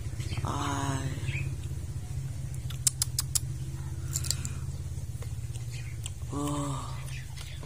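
A motor idles with a steady low hum throughout. A few sharp clicks come about three seconds in, and two short hummed voice sounds come near the start and again near the end.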